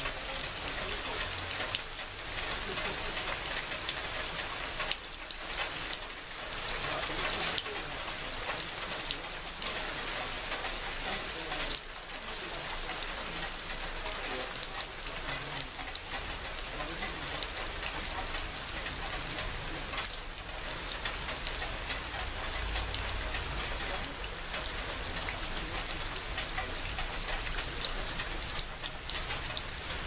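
Steady rain falling, with many close drops pattering and dripping off the edge of a corrugated roof.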